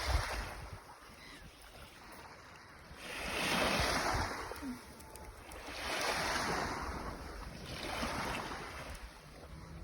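Sea waves washing onto the shore, the surf noise swelling and fading three times, about three, six and eight seconds in. A brief thump at the very start.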